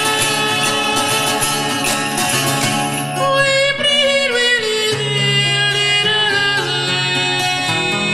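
A round-backed, long-necked lute of the bouzouki type, strummed briskly in repeated chords, then plucked in slower held notes. In the middle a high voice sings a wavering line over it.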